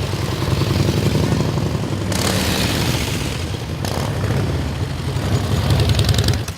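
Motorcycle engine running close by with a steady low pulse. There is a rougher, hissier stretch from about two to four seconds in, and it grows a little louder near the end.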